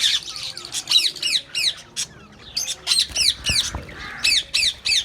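Budgerigars calling: repeated short, sharp calls that sweep down in pitch, coming in quick runs of several at a time.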